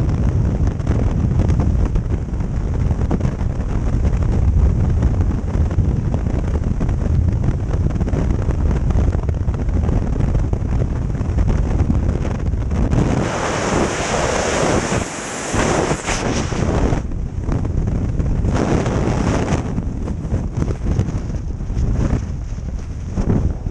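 Freefall wind rushing and buffeting over a helmet camera's microphone, a loud steady rumble. About thirteen seconds in it turns brighter and hissier while the parachute deploys, then breaks into uneven gusts.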